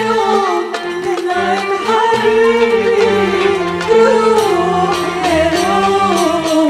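Women singing an Arabic love song as a duet into handheld microphones, one sustained, ornamented melodic line gliding up and down, with steady low accompanying notes underneath.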